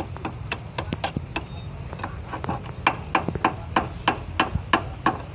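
Hammer blows on metal: a steady run of sharp strikes, about three a second, growing louder in the second half.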